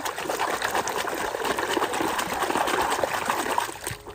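Water splashing and trickling as a muddy toy truck is rinsed clean, stopping near the end.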